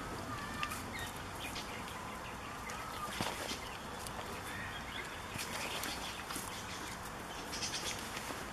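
Goat kids nibbling and tugging at cloth trousers, with rustling and scattered small clicks and scuffs in dry straw. Faint, thin, wavering bird calls sound in the background.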